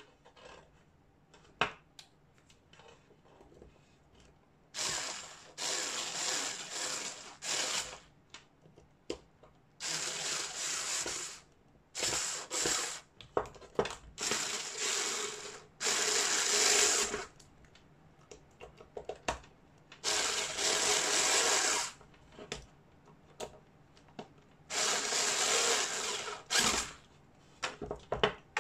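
Small cordless electric screwdriver running in repeated bursts of one to three seconds on the screws of a CO2 revolver's metal frame, with clicks of handling between the bursts.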